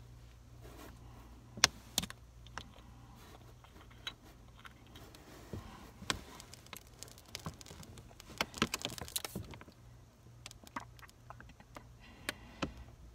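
Handling noise close to the phone's microphone inside a cardboard box: scattered small clicks, taps and rustles, with a denser crackly flurry about two-thirds of the way through.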